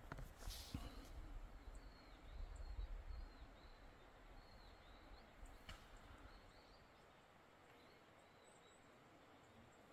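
Quiet countryside ambience with a small bird giving faint, short high chirps, about two a second, through the first six seconds. There is a low rumble in the first few seconds.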